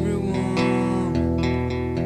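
Acoustic guitar strumming chords that ring on, with a change of chord about a second in.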